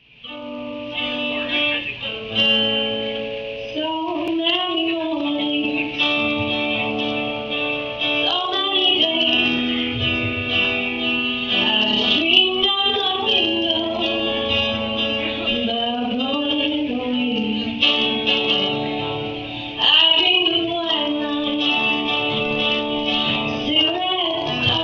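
A young woman singing a country-folk song to steel-string acoustic guitar accompaniment. The guitar starts the song and her voice comes in a few seconds later, in phrases every few seconds.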